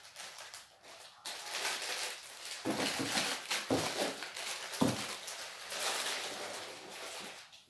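Rustling and crinkling of packaging being handled, with a few soft knocks of packets being set down.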